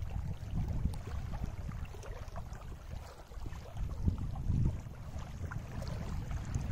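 Wind buffeting the microphone in uneven gusts, with small waves lapping at the shore.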